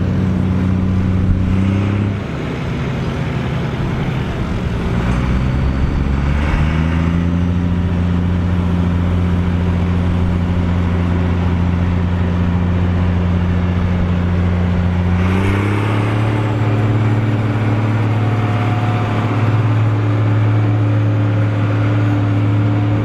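Case IH 1455 XL tractor's six-cylinder diesel engine running steadily. Its engine speed dips about two seconds in, climbs back over the next few seconds, and steps up again about two thirds of the way through.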